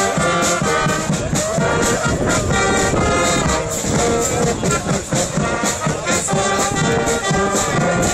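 Small brass band playing live: trumpets and lower brass sound chords that change every fraction of a second over a steady beat of drum hits.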